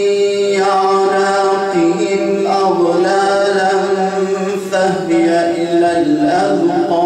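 A man reciting the Quran in melodic chanted style (tartil/tajwid), holding long sustained notes with ornamented slides between pitches.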